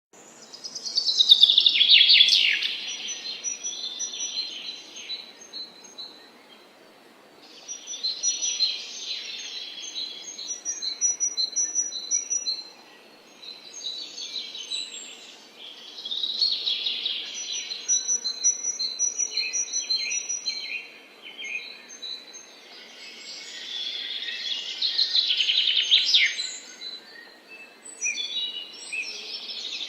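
Several songbirds chirping and trilling in bouts, with quieter gaps of a few seconds between them, over a faint background hiss.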